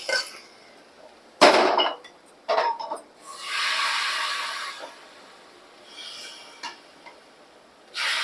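Cookware clattering: a few sharp knocks and clinks of pots and utensils, with an even hiss of about two seconds in the middle, as a fried spice tempering is added to a pot of rasam.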